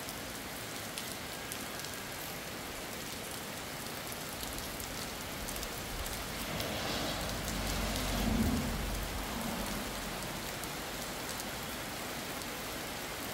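Steady rain falling, an even hiss throughout, with a low rumble that swells and fades about halfway through.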